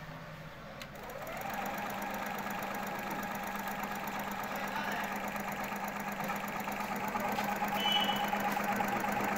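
Juki HZL-010 computerized sewing machine starting up about a second in, rising quickly to speed, then running steadily at a fast even stitch as it sews a buttonhole with its buttonhole foot.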